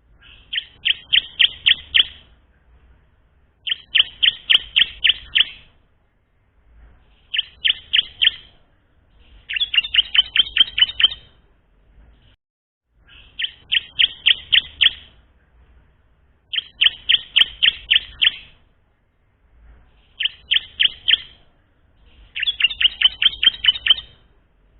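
Bar-winged prinia (ciblek) singing a learner's song: eight short phrases of rapid, high chipping notes, each a second or two long, repeated every few seconds.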